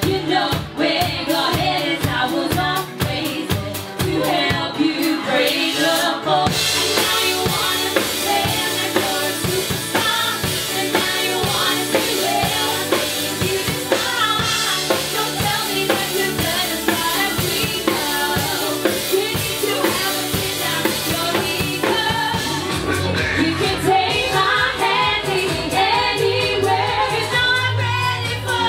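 Live pop music from a cover band: women singing into microphones over a drum kit, with a brighter cymbal wash joining about six seconds in.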